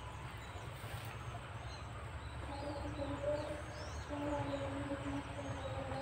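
Outdoor ambience of faint, high, short bird chirps over a steady low rumble. From about two and a half seconds in, a steady low hum-like tone joins, breaking off briefly near the middle.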